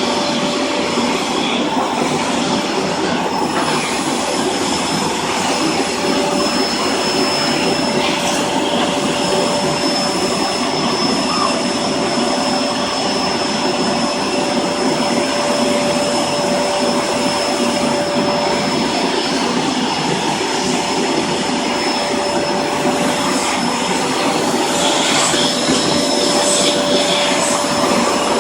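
Vacuum cleaner running steadily, a constant motor whine over a loud rushing of air.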